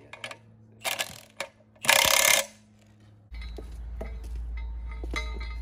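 Milwaukee cordless impact wrench hammering briefly on a nut on an anchor bolt of a steel base plate: a short burst about a second in and a louder one about two seconds in. After that, light metal clicks of nuts being handled over a steady low rumble.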